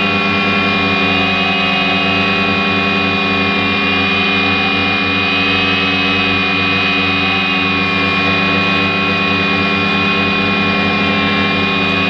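DJI Phantom quadcopter's four electric motors and propellers whining steadily while it hovers, a loud drone of several held tones heard close up from the camera mounted on the drone itself.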